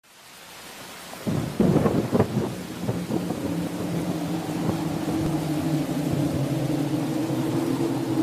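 Steady rain fading in, with a loud thunderclap about a second in that rolls on for a second or so. A low steady drone of two tones then builds beneath the rain.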